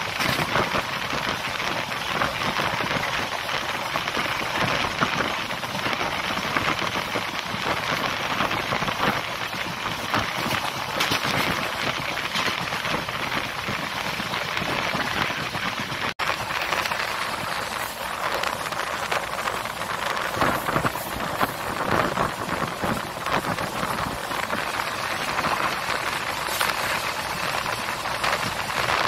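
Passenger train running at speed, heard from on board: a steady rush and rattle of wheels, track and wind, full of small clicks. It cuts out for an instant about sixteen seconds in.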